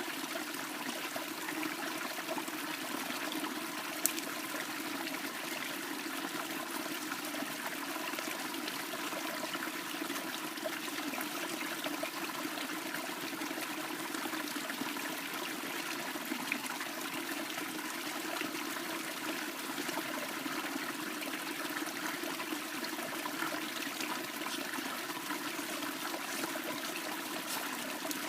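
Steady running water, like a small stream trickling over stones, with a single sharp click about four seconds in.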